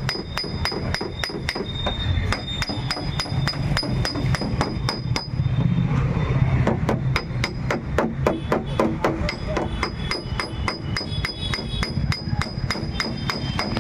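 Light hammer taps on a car's sheet-metal panel, about four a second in a steady rhythm, each with a short high metallic ring: tapping down a dent in body repair.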